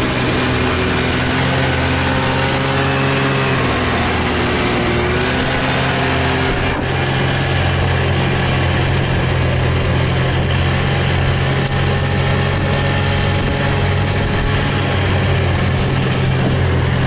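Snowmobile engine running steadily at travelling speed, heard from the driver's seat, pulling a loaded sled through deep snow, with a steady hiss over the engine note. The engine pitch wavers a little in the first few seconds, then holds even.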